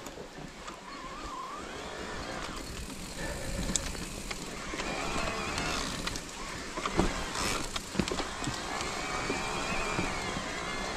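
Electric mountain bike riding over a leaf-covered dirt trail: tyre noise on leaves and earth, with the bike knocking and rattling over bumps. A wavering whine from the electric assist motor rises and falls from about halfway through.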